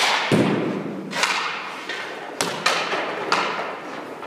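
A series of sharp hockey knocks and thuds in an echoing rink: a puck and a goalie's pads and stick hitting each other and the floor, about six hits spread over four seconds, the first followed at once by a heavy low thud.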